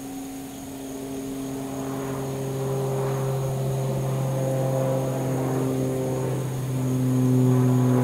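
Freight train passing, with a steady diesel locomotive engine drone that grows louder throughout.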